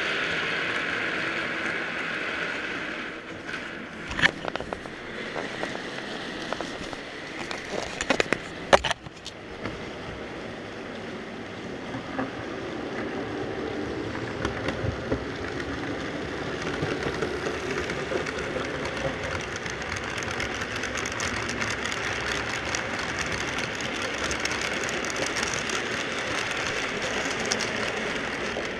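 Model freight train running on a layout: small metal wheels rolling and clicking over the track, with the locomotive's running noise growing as the train draws close. A few sharp clicks and knocks come about four and eight seconds in.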